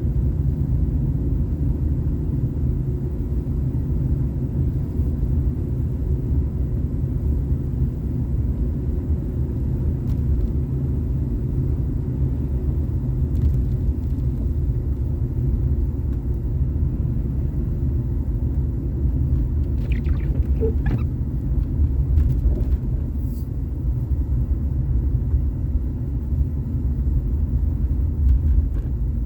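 Steady low rumble of a car driving, engine and road noise, with a few faint brief squeaks about two-thirds of the way through.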